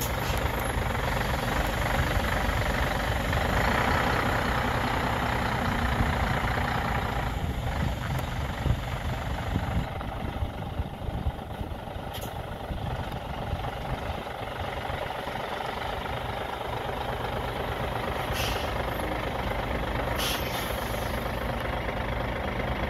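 Scania 124L 360 tractor unit's diesel engine running steadily, a little louder for a few seconds near the start. Three short hisses of compressed air, about twelve, eighteen and twenty seconds in.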